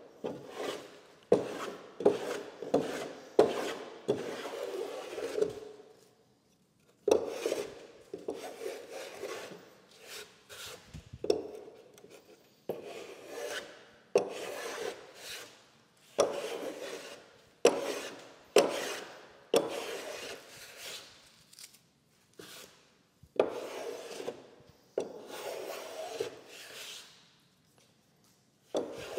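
Block plane shaving the edge of a wooden beam down to a cut line: a run of separate strokes, each starting sharply and trailing off, with a couple of short pauses between runs.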